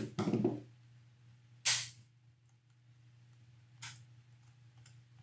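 Metal tweezers clicking against a loose screw and the plastic housing of a small dash cam while prying the screw out: one sharp click about a second and a half in, a smaller one near four seconds and a faint tick near the end, over a steady low hum.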